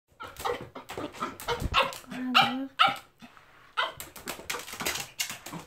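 Toy poodle barking in a rapid series of short yaps, with a brief pause about three seconds in.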